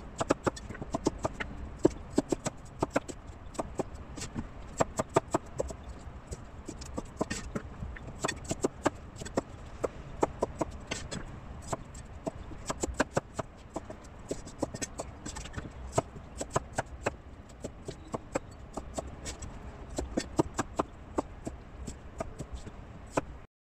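Chinese cleaver slicing celtuce stems on a wooden chopping board: quick, uneven runs of sharp knocks as the blade strikes the board, stopping suddenly just before the end.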